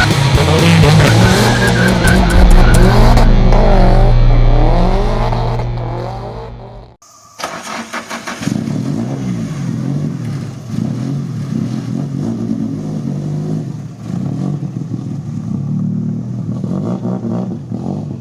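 Drift car's engine revving hard, pitch swooping up and down, over tyre squeal. About seven seconds in it cuts off abruptly, then an engine is heard more quietly, its revs rising and falling.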